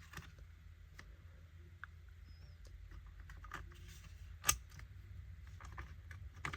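Faint scattered clicks and taps from handling the open laptop's internals, with one sharper click about four and a half seconds in, over a low steady hum.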